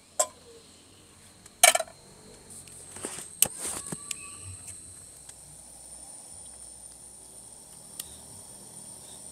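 A steady high-pitched insect chirring, with a few sharp knocks or clicks. The loudest knock comes about a second and a half in.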